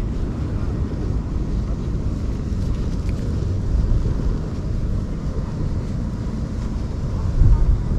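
Tabby-and-white cat purring right at the microphone while being stroked: a steady low rumble.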